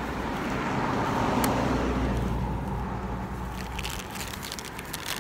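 A car passing on the street: tyre and engine noise that swells over the first two seconds and fades away, over a low rumble.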